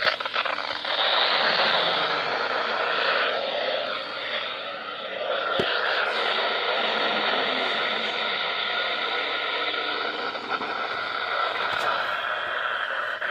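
Static hiss from a weather radio receiver on a weak NOAA Weather Radio signal, with a faint broadcast voice under the noise.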